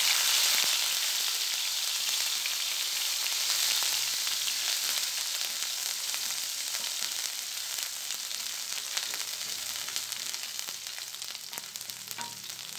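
Minced garlic sizzling in hot oil in a non-stick wok, stirred with a wooden spatula. The steady sizzle is loudest at the start and slowly dies down, with small crackles throughout.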